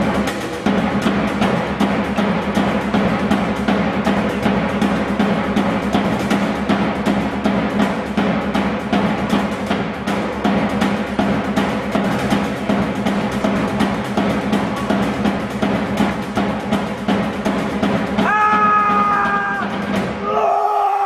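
Deep drums beaten in a fast, steady roll. Near the end the drumming fades under two drawn-out high calls.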